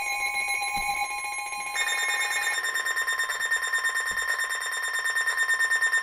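Several NOAA weather radios sounding their alert alarms at once: overlapping steady electronic tones and rapid beeping, including the 1050 Hz weather alert tone that signals a warning. The mix of tones shifts about two seconds in.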